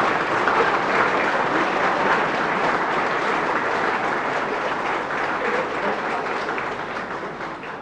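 Large audience applauding a joke's punchline, the clapping slowly fading toward the end.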